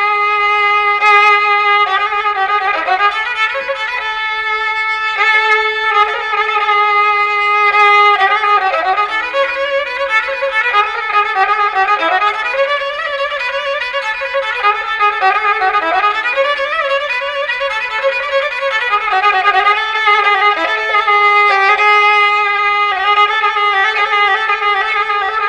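Kamancha, the Armenian bowed spike fiddle, playing a folk melody solo. Long held notes alternate with quick, wavering ornamented runs.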